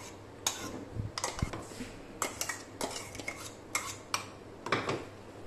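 Steel spoon clinking and scraping against a steel mixer-grinder jar and bowl while scooping out thick ground pumpkin paste, a series of irregular sharp clinks.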